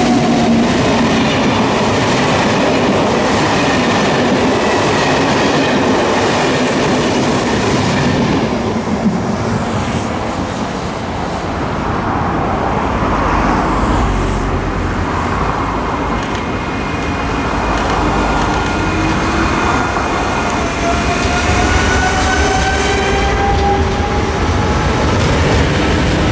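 An SNCF BB 22200 electric locomotive hauling passenger coaches passes close by with steady wheel-on-rail noise. About halfway through, a TER 2N NG double-deck electric multiple unit comes in and runs past, its electric whine rising in pitch near the end.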